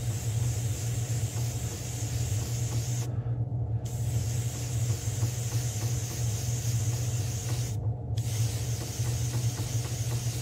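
Iwata airbrush spraying paint with a steady hiss, in three long passes broken by two short pauses about three and eight seconds in. A steady low hum runs underneath.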